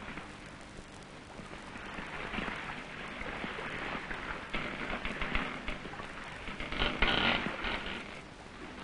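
Water sloshing and swirling around a sailing ship's bow, swelling up twice, under the steady hiss and crackle of an old film soundtrack.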